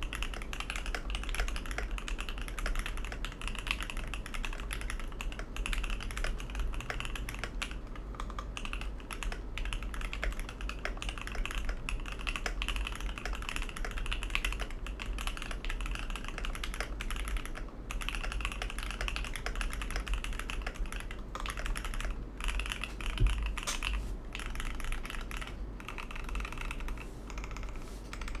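Fast, continuous typing on a custom 65% mechanical keyboard: lubed and filmed Alpaca V2 linear switches in a brass plate with PBT Cherry-profile keycaps, giving a dense stream of keystrokes with a few brief pauses. One heavier keystroke stands out about three-quarters of the way through, and a steady low hum sits underneath.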